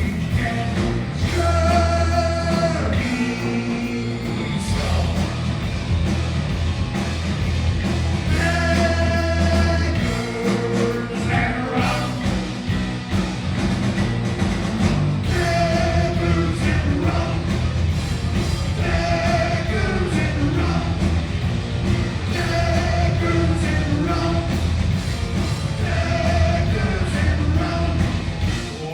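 Heavy metal band playing live, with a singing voice over loud electric guitars, bass and drums.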